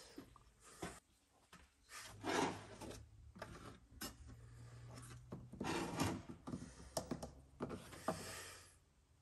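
Handling of a plastic oil jug on a workbench: its cap is turned and the jug is lifted, slid and set down, giving three rough scraping rubs with sharp clicks and knocks between them.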